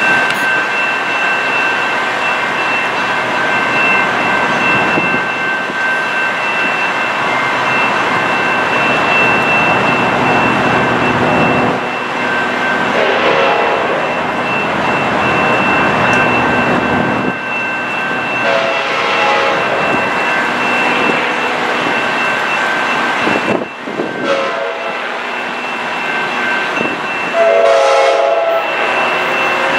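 Approaching passenger train sounding its horn four times in the long, long, short, long grade-crossing pattern, over a steady rumble of the train.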